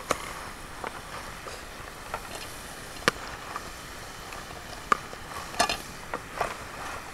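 Julienne potatoes sizzling in hot oil in a frying pan, with a wooden spoon scraping and knocking against the pan a handful of times as the crisp fried potatoes are lifted out.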